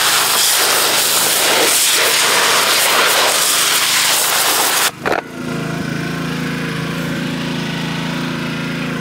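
Pressure washer jet blasting into a pile of dirty snow, a loud rushing hiss. About five seconds in, the spray cuts off suddenly, leaving the pressure washer's small engine running steadily.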